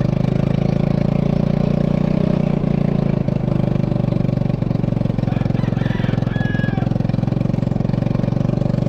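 A small engine running steadily at a constant speed, close by, with a fast even pulse and no change in pitch.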